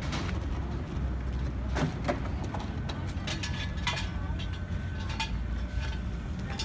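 Outdoor ambience of a carnival lot being set up: a steady low rumble with scattered knocks and clatter, and a faint high steady tone from about three seconds in.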